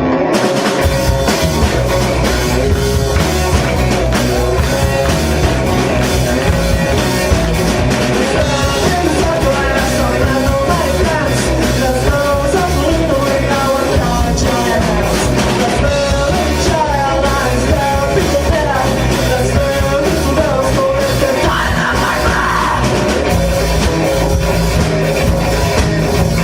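Loud rock music with a steady beat, bass and drums, and a voice singing over it from about a third of the way in.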